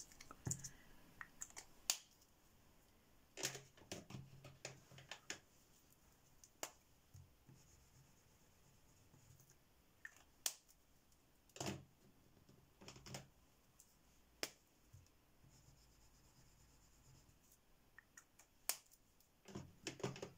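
Faint, scattered clicks and taps of plastic gel crayon tubes and their snug caps being handled and set down, with soft rubbing of a gel crayon across paper between them.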